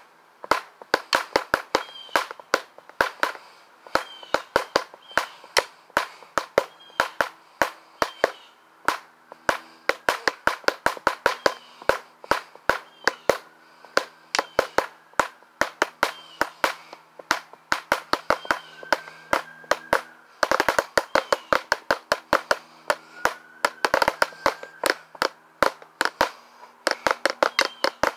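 Drumsticks played in a quick, steady rock pattern, sharp strikes about four a second, with a dense fill about twenty seconds in and shorter fills after it.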